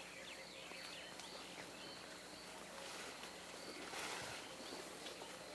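Faint bush ambience: scattered short bird chirps, with a brief rustle about four seconds in.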